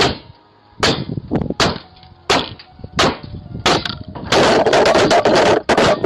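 A hammer strikes a video doorbell six times, about one blow every 0.7 s, heard through the doorbell's own microphone. About four seconds in, the sound turns into a continuous loud rattle of knocks and noise as the doorbell is beaten loose and broken.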